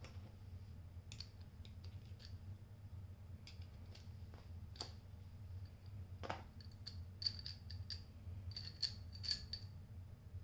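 Scattered small metallic clicks and taps from a broken socket ratchet being handled and taken apart, with a quick run of sharper clicks near the end, over a low steady hum.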